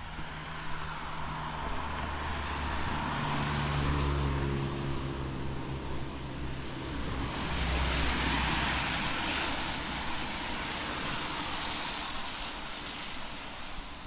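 Cars passing on a wet road: a low engine hum and tyre hiss on the wet tarmac swelling and fading as each goes by, about three passes, the loudest about eight seconds in.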